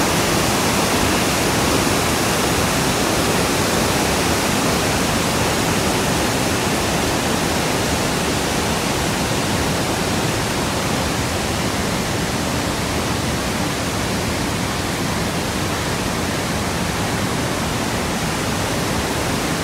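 Montmorency Falls, a large waterfall, rushing steadily as heavy water plunges into its pool: an even, unbroken hiss that holds level throughout.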